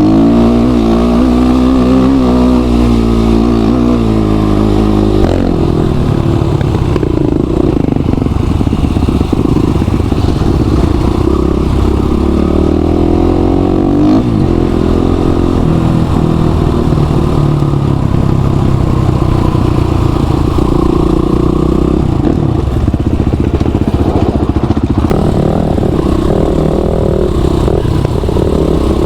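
Motorcycle engine running under way on a dirt track, its revs rising and falling through the ride, with clatter from the rough surface.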